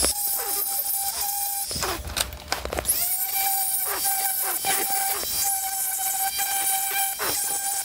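High-speed die grinder whining at a steady high pitch while chamfering the port edges of a Yamaha 701 cylinder, with short scraping streaks each time the cutter touches the metal. It stops about two seconds in and spins back up about a second later.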